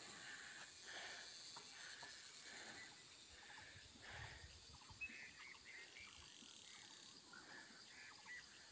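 Faint insect chorus: a steady, high-pitched buzz, with a few faint chirps about halfway through.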